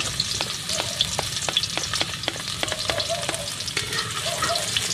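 Chopped garlic sautéing in hot oil, sizzling steadily, with a utensil clicking and scraping against the pan as it is stirred.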